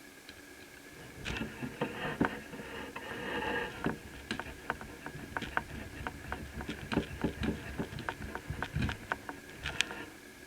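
Small clicks, taps and scraping from hands and tools working on a laptop's cooling fan during disassembly and cleaning. The ticks come in a quick irregular run, with scraping noise mostly in the first few seconds.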